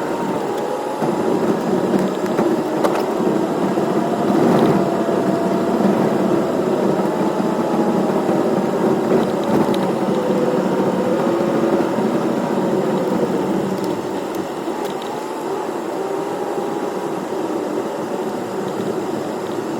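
Strong thunderstorm wind blowing steadily, with a thin whistle that wavers slowly up and down in pitch.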